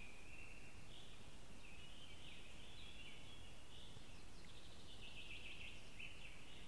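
Small songbirds singing continuously in the background, a high-pitched chorus with a rapid trill about four to five seconds in, over a steady low background hiss.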